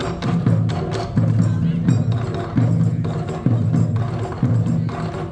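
Japanese taiko drums played by an ensemble: heavy, ringing low strokes about once a second, with quicker, sharp clicking strikes between them.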